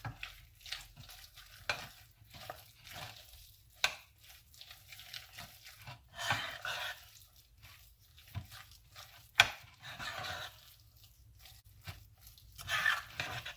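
A utensil stirring chicken salad in a bowl: irregular stirring strokes, with a few sharp taps against the bowl, the loudest about nine and a half seconds in.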